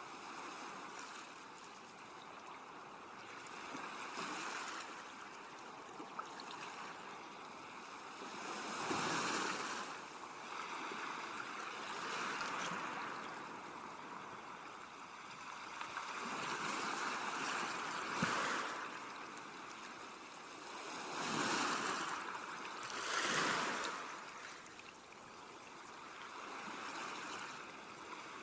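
Sea waves washing in, each swelling up and dying away every few seconds, a few surges louder than the rest.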